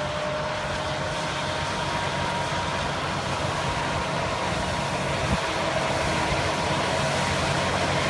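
Large tractor's diesel engine running under load as it pulls a plough across the field, with a steady high whine over the engine note. It grows gradually louder as the tractor approaches.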